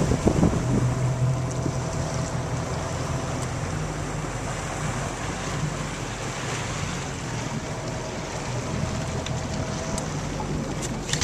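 Motorboat engine running with a steady low hum under the rush of water from the wake and wind buffeting the microphone.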